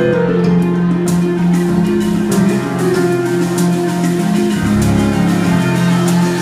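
A live band playing music, with a steady bass line underneath.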